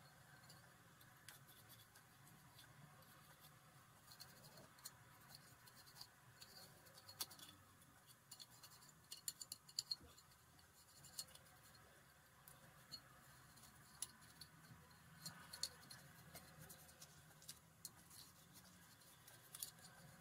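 Faint handling noises: scattered light clicks and scratches as a plastic bottle and small air-pistol parts are picked up and set down, with clusters of clicks about halfway through and again a few seconds later.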